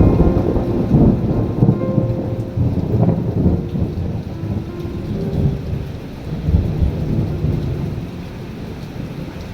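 Rolling thunder rumbling over steady rain, the rumble slowly fading toward the end. A few soft piano notes sound faintly in the first few seconds.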